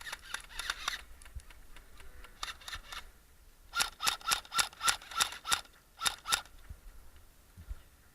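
Airsoft gun firing single shots: a quick run of clicks at the start, a few more, then a steady string of about ten sharp shots, several a second, near the middle.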